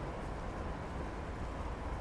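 Steady city traffic rumble, with a faint steady high tone above it.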